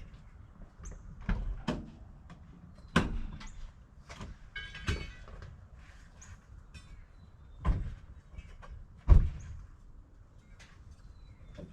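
Irregular knocks and bangs, about six in all, with the loudest a little past the middle and a short squeak shortly before the middle.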